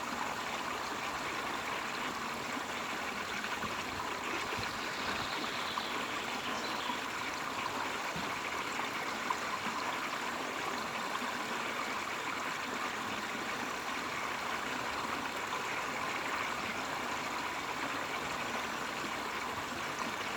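Flowing stream water, a steady babbling rush.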